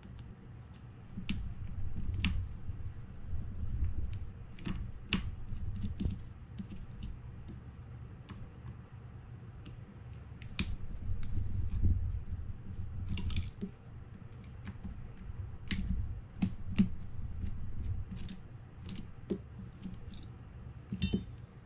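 Small screwdriver clicking and scraping in metal screw heads as the screws of a Shimano TLD 25 reel's quadrant plate are backed out, in scattered sharp ticks over a low rumble of the reel being handled.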